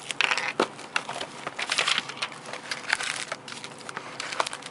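Trading-card box packaging being opened by hand: irregular crackling and crinkling of wrapper and cardboard, busiest in the first couple of seconds.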